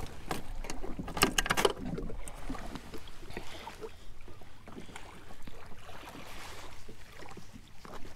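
Hobie fishing kayak moving off from a dock: a quick cluster of hard knocks about a second in, then water splashing and lapping against the plastic hull with scattered small clicks.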